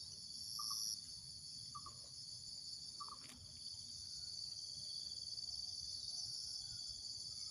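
Steady, high-pitched chorus of insects, cricket- or cicada-like, droning without a break. Four short chirps come about a second apart in the first three seconds.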